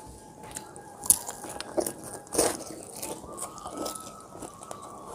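A person chewing and biting food close to the microphone, with sharp crunches about a second in and again about two and a half seconds in, and softer mouth sounds between them. A faint steady tone runs underneath.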